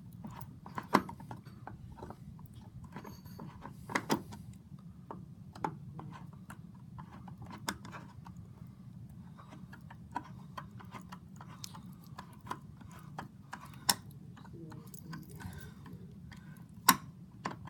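Scattered clicks and light knocks of metal shower-valve trim parts being handled and fitted by hand, with a few louder knocks, over a steady low hum.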